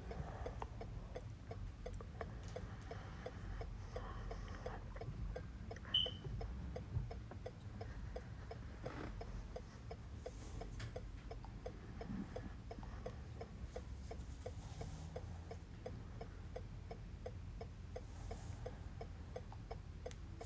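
Steady, even ticking of a car's hazard-light flasher, about three ticks a second, with one short high beep about six seconds in.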